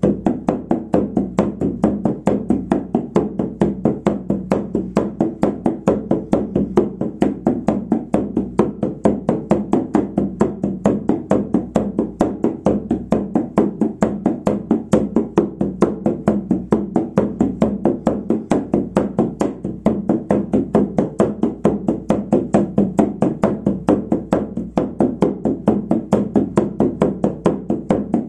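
Large hand-held frame drum (shaman's drum) struck with a beater in a steady, unbroken beat of about four strokes a second: the monotonous drumming used to carry a shamanic journey.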